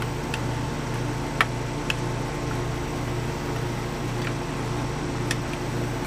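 Steady hum of an air conditioner running, with a few light, sharp clicks from a screwdriver and the plastic housing of a boat's remote control being handled.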